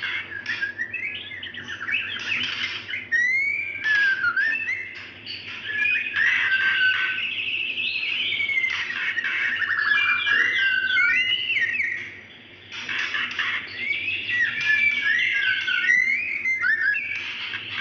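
Female white-rumped shama (murai batu) calling for a male: a rapid, varied run of clear whistled notes and pitch slides, nearly unbroken apart from a brief lull about twelve seconds in.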